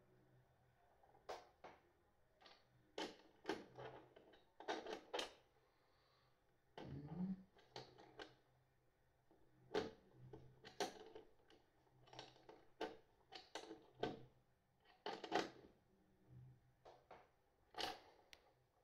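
Irregular clicks, taps and knocks of small parts being handled as a BMS circuit board and its screws are fitted onto a battery case's front panel, a few sharp clicks every couple of seconds.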